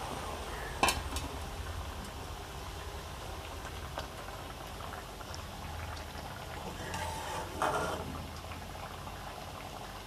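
Curry gravy bubbling at a boil in a kadai, with a sharp metal clink against the pan about a second in and a metal spatula scraping through the curry later on.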